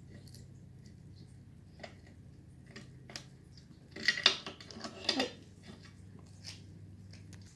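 Light clinks and clicks of small hard, metal-sounding parts or tools being handled, with a burst of clattering about four to five seconds in, over a faint low hum.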